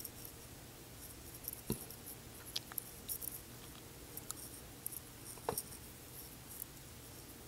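Quiet room tone with a few faint scattered clicks and taps, and two slightly stronger knocks, one at about two seconds in and one at about five and a half seconds in.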